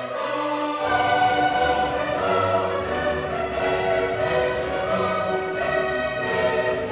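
Background orchestral music, slow classical-style held chords with strings, a bass line entering about a second in.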